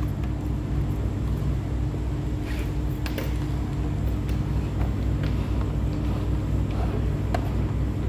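A steady low mechanical hum, with a few light clicks scattered through it.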